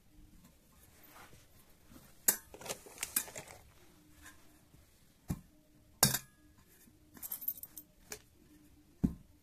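Handling of a selfie stick's plastic-and-metal phone-holder clamp as it is fitted onto the stick: a series of sharp clicks and clinks of small hard parts, with a brief rattle of ticks shortly before the end.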